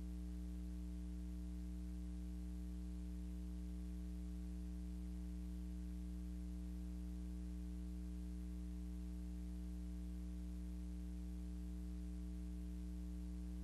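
Steady low electrical hum with a faint hiss above it, unchanging, with no other sound.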